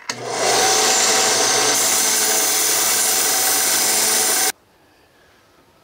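Small benchtop belt sander running with a steel motor-shaft adapter held against the belt to sand off surface rust: a steady whirring grind that cuts off suddenly about four and a half seconds in.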